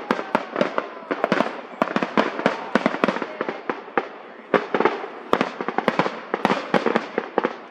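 Aerial fireworks bursting in a dense barrage: rapid, overlapping bangs and crackles, several a second. The bangs ease briefly about four seconds in, then pick up again.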